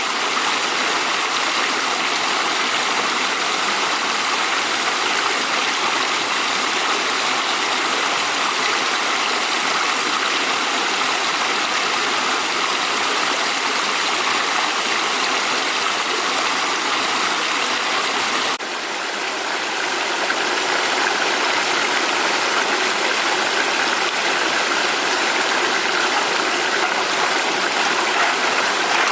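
Steady rush of fast-flowing water, like a stream in spate. About two-thirds of the way through it breaks off for an instant, dips, and builds back to the same level.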